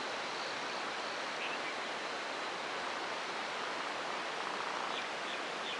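Steady rushing outdoor background noise, even and unbroken, with a few faint short high chirps about a second and a half in and again near the end.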